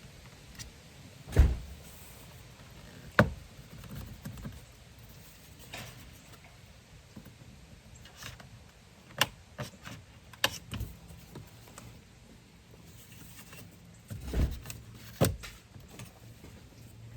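Irregular clicks and knocks of a car's plastic dashboard trim panel being pried and pulled loose with a plastic pry tool. The sharpest come about a second and a half in and about three seconds in, with more around ten and fourteen seconds.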